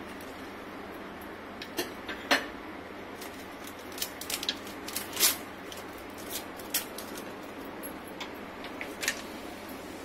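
Whole spices, a cinnamon stick and bay leaves, dropped into hot oil in a steel kadai. Scattered sharp crackles and clicks sound as the spices hit the oil.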